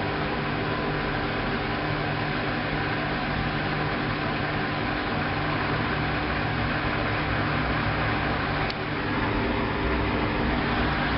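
Hoover washing machine running its intermediate spin: a steady mechanical hum with a short click about three-quarters of the way through.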